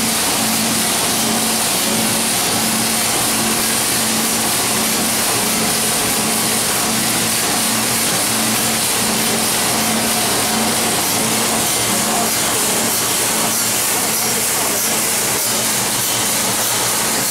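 Drum roaster running: a loud, steady rushing noise of the rotating drum churning its load of kernels, with a low hum that pulses about one and a half times a second.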